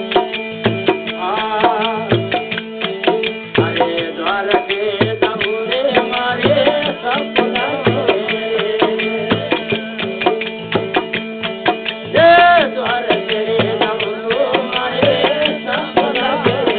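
Folk bhajan music: a sustained drone under a bending melody line, with a hand drum keeping a steady beat of about one and a half strokes a second. About twelve seconds in, one brief, louder held note stands out.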